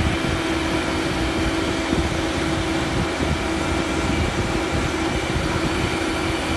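Truck-mounted mobile crane running: a steady diesel engine drone with a constant high whine held over it.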